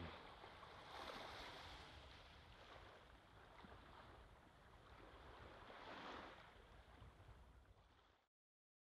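Faint wash of small waves on a sandy shore, swelling twice about five seconds apart, then cutting off to total silence near the end.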